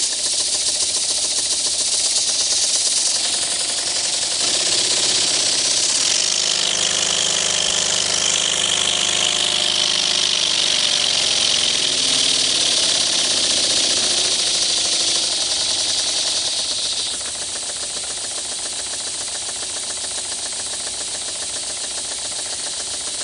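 Model twin-cylinder double-acting oscillating engine running fast on compressed air in reverse, a rapid clatter under a loud hiss of exhaust. Its speed shifts up and down in the middle, and the sound drops to a quieter, steadier run about two-thirds of the way through.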